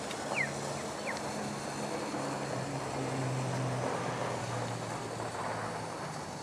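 A vehicle engine humming steadily over a background hiss, with two short falling whistles in the first second or so.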